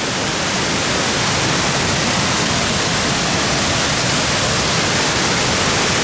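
Fukiware Falls, a 7 m high, 30 m wide waterfall on the Katashina River, rushing steadily: a loud, even sound of falling water that does not change.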